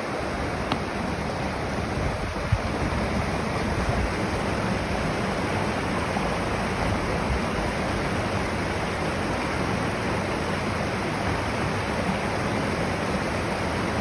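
River rapids rushing and splashing over rocks: a steady, even rush of white water, with one brief knock about two and a half seconds in.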